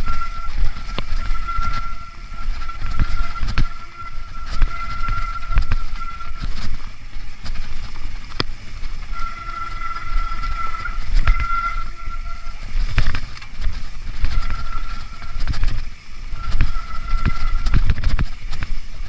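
Mountain bike descending a rocky, leaf-covered trail: rumbling wind on the microphone, with rattling and sharp knocks as the tyres hit stones and roots. A high steady tone comes and goes in stretches throughout.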